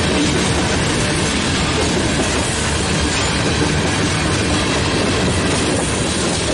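BNSF freight train's covered hoppers and tank cars rolling past close by: steady, loud noise of steel wheels running on the rails.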